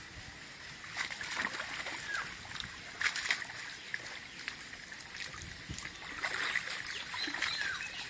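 Water sloshing and splashing in irregular bursts as a man wades waist-deep through a muddy pond, gathering and lifting a wet cast net.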